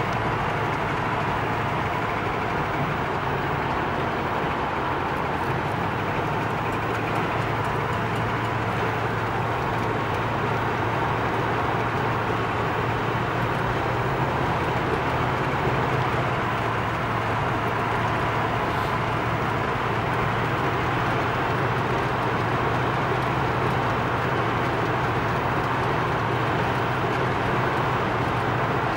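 1979 Pontiac Trans Am Special Edition cruising at a steady speed, heard from inside the cabin: a steady engine drone with road noise, no revving.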